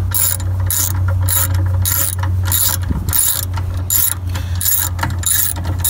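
Socket ratchet clicking in about ten even strokes, roughly two a second, as it backs out a 10 mm bolt, over a steady low hum.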